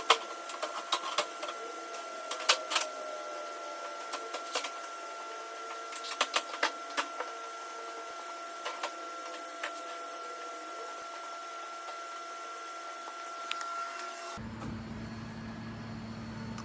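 Irregular sharp clicks and knocks over a steady high-pitched hum; the hum cuts off suddenly near the end.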